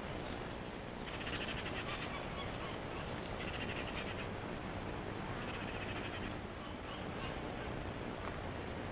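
Three short, rapidly pulsed rattling animal calls, each under a second long, over a steady outdoor hiss.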